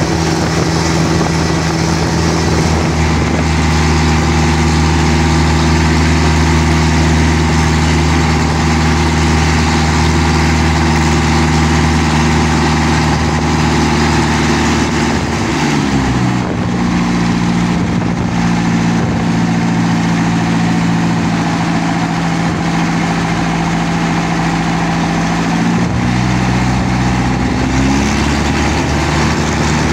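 Inboard car engine of a wooden jukung river boat running under way with a steady drone. About halfway through its pitch falls as it is throttled back, then rises again near the end.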